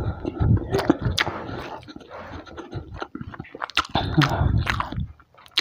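Close-up mouth sounds of a person chewing a hand-fed mouthful of rice, wet clicks and smacks, with two short low voiced sounds, about half a second in and around four seconds in.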